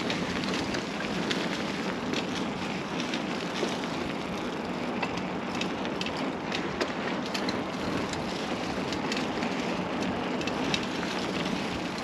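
Mountain bike tyres rolling over a rough path: a steady crunching hiss with many small crackles and ticks.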